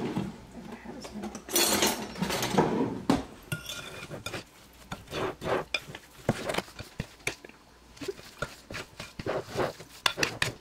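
A spoon stirring thick brownie batter in a ceramic mixing bowl: irregular scraping strokes with light clinks against the bowl, loudest about two to three seconds in.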